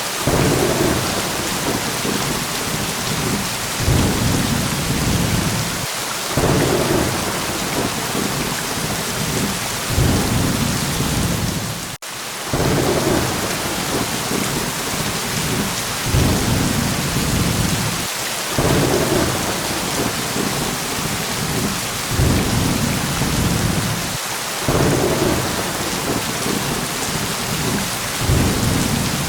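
Steady heavy rain hiss with rolling low thunder rumbles that swell and fade again every few seconds, and a brief drop-out about twelve seconds in.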